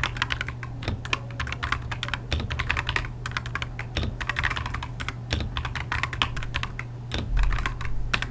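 Rapid, continuous typing on an AKKO 5075B Plus mechanical keyboard: a dense run of keystroke clicks over a steady low hum.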